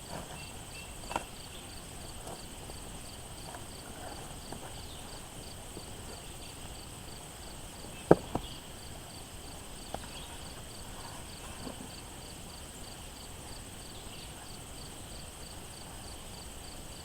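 Insects chirping steadily, with a high even pulsing trill over a constant high buzz. A few sharp knocks break in, the loudest about eight seconds in.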